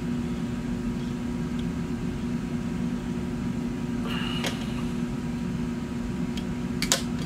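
Steady low machine hum in a small room, with two sharp clicks near the end as small scissors snip the tying thread at the head of a finished fly.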